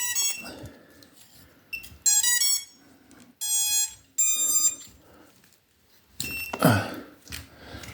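A 5-inch FPV drone's ESCs playing their start-up tones as a 4S LiPo battery is connected through its XT60 plug, which shows that the battery is powering the drone. The tones are a quick run of stepping notes followed by two longer beeps. Near the end comes a louder, sudden noise.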